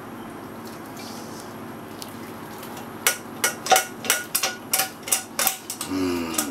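A utensil knocking sharply against a strainer, about three knocks a second starting about three seconds in, as stewed plum compote is strained and drained.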